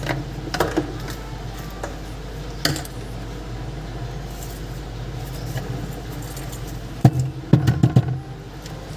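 Small screws being worked out of a mini Bluetooth speaker's plastic case with a screwdriver: a few scattered light clicks, then a quick run of several sharp clicks near the end as the tool and screws knock against the case. A steady low hum runs underneath.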